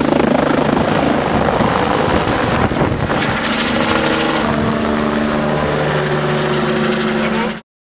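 Helicopter lifting off and climbing away overhead: a steady rotor beat with a high turbine whine, cutting off suddenly near the end.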